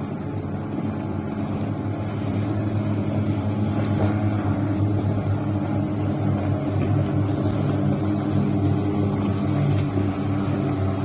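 Power boat's inboard/outboard engine running with a steady low drone, growing louder over the first few seconds as it draws nearer.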